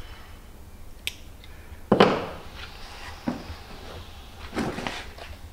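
A few separate metal knocks and clicks from fitting a piston, held in a ring compressor, into a cylinder bore of an LS V8 block. The loudest knock comes just before two seconds in, with a short ring after it.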